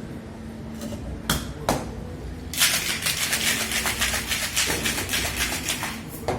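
Two sharp knocks, then ice cubes rattling hard and fast in a cocktail shaker being shaken for about three and a half seconds, stopping shortly before the end.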